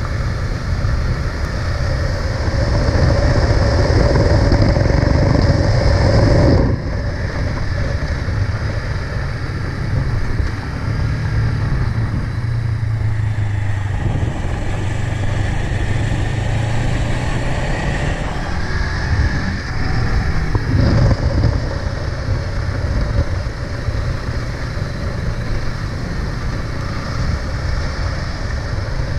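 Honda CB500X's parallel-twin engine running on the move, rising and falling with the throttle. The loudness drops off sharply about seven seconds in as the throttle is closed, and the engine pulls hard again about twenty seconds in.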